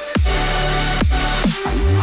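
Electronic background music with heavy bass and sharp drum hits, some followed by falling synth sweeps.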